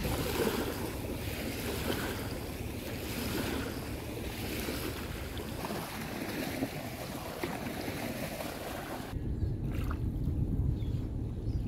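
Shore ambience of wind buffeting the microphone over small waves lapping at the water's edge. About nine seconds in the sound changes abruptly to a duller, lower wind rumble.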